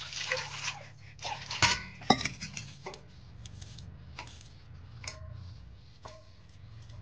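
Water poured from a steel tumbler into a wide steel plate, then two sharp metal clinks about two seconds in. After that a knife cuts through an onion held in the hand, with light, irregular clicks.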